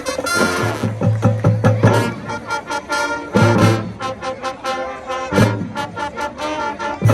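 High school marching band playing, with brass and drums. Strong low drum hits come about half a second in, around three and a half seconds, and again around five and a half seconds.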